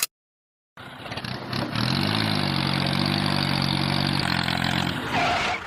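A vehicle engine starts up and runs, its pitch rising once early on and then holding steady, before it cuts off abruptly near the end.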